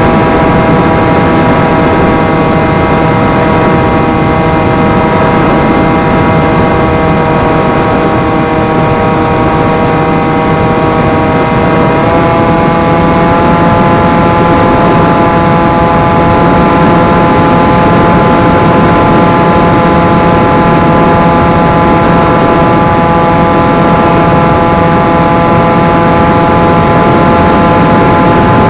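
Electric motor and propeller of an FPV flying wing whining steadily, heard through the onboard camera with heavy wind rush. The pitch sags slightly, then steps up about twelve seconds in as the motor speeds up, and holds steady after.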